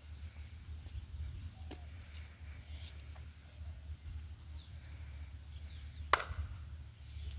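A single sharp knock about six seconds in, with a few faint ticks, over a steady low rumble.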